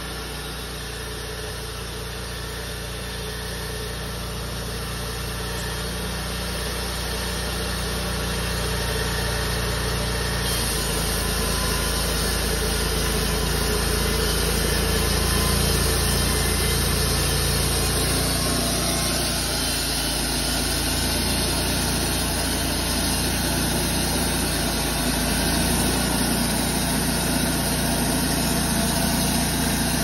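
Cooks MP-32 bandsaw mill's engine running steadily while the band blade saws through a pine log. The sound grows louder over the first half, and a high hiss comes in about a third of the way through.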